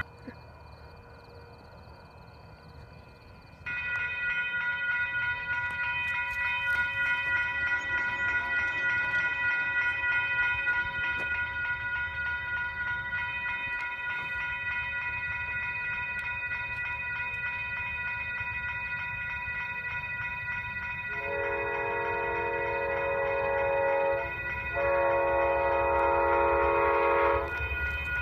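Approaching Amtrak passenger train, with a steady high-pitched ringing starting about four seconds in. Near the end the locomotive's horn sounds two long blasts of a loud chord, then begins another, in the pattern of a grade-crossing warning.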